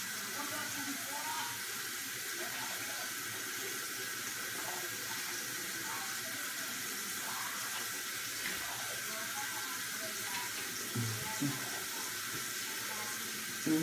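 Bathroom tap running steadily into the sink, with a toothbrush scrubbing teeth over it.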